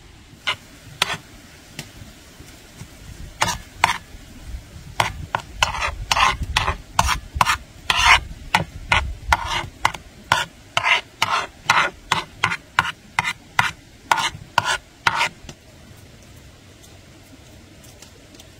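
A spoon stirring food in a dish: a run of short scraping strokes, sparse at first, then about two a second, stopping about three seconds before the end.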